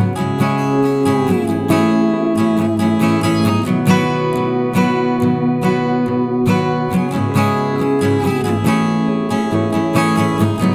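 Background music led by an acoustic guitar, strummed and plucked with a steady beat.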